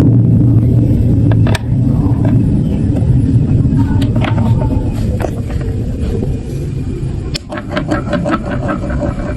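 Marbles rolling down plastic marble-run tracks: a steady rumble with scattered clicks of marbles knocking against the blocks. The clicks come thicker after a brief dip about seven seconds in.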